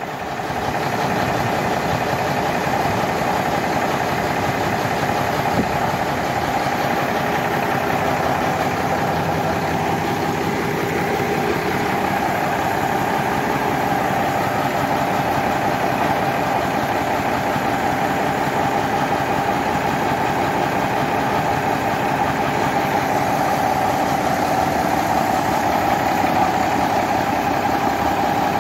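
Mercedes-Benz OM366T six-cylinder turbo-diesel running steadily on an engine dynamometer test bench, growing a little louder in the first second and then holding an even note.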